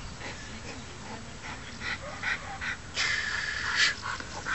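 Dutch Shepherd panting in short, quick breaths, two or three a second, then a louder, longer rasping sound about three seconds in lasting nearly a second. A sharp click near the end.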